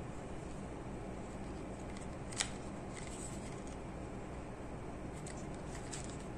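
A small plastic toy dump truck being handled and turned over in the hands: faint plastic rubbing and ticks, with one sharp click about two and a half seconds in, over a steady background hiss.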